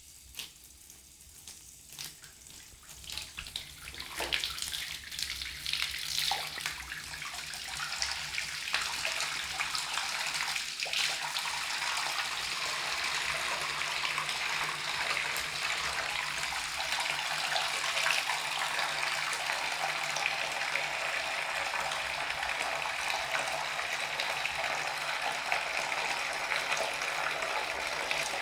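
Tap water pouring into a bathtub. It starts as scattered splashes and builds over the first several seconds into a steady rush of water filling the tub.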